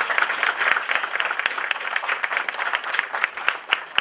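Audience applauding, with many hands clapping at once at a fairly even level.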